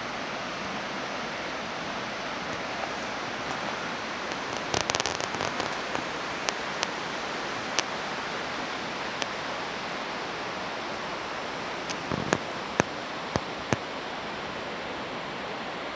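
Dry twigs and branches snapping and crackling underfoot while walking through brush, a cluster about five seconds in and several sharp cracks near the end, over a steady rushing hiss.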